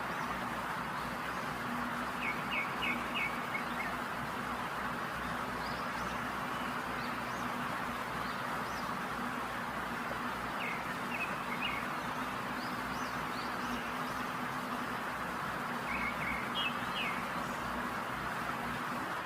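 Steady sizzle of chicken drumsticks deep-frying in hot oil, with birds chirping in three short bursts: about two seconds in, near the middle and near the end.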